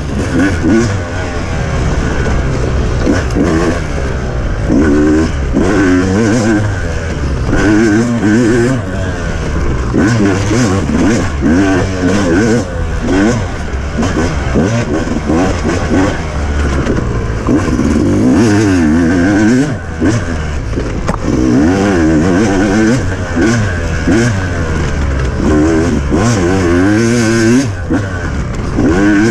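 Off-road motorcycle engine being ridden hard, revving up and down over and over, its pitch rising and falling every second or two as the rider works the throttle and gears.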